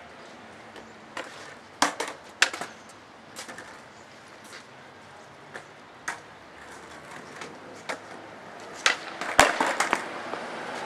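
Skateboards on concrete pavement: scattered sharp clacks of decks and tails hitting the ground, the loudest a quick cluster about nine and a half seconds in, then wheels rolling near the end.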